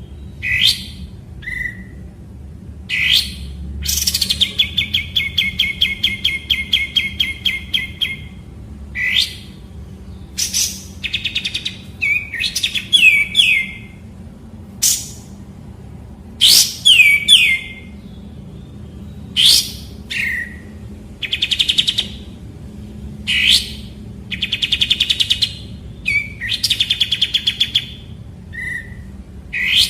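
Kapas tembak bulbul singing: sharp, sweeping whistled notes alternating with fast, rattling trills, the longest trill running about four seconds.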